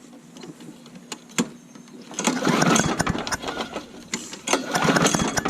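Old Murray push mower's small engine being pull-started twice, about two seconds in and again near the end. Each pull of the recoil starter gives a short rattling whir as the cold engine turns over without catching.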